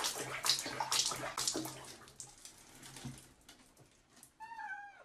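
Bathwater splashing and dripping in a plastic basin around a cat sitting in it, busy at first and thinning out after about two seconds. A brief falling call with overtones comes near the end.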